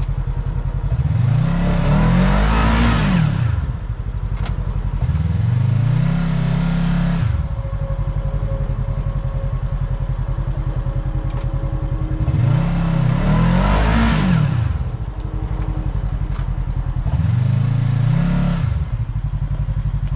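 Side-by-side UTV engine idling and revved four times, in two pairs: each rev climbs in pitch and falls back to idle over two to three seconds.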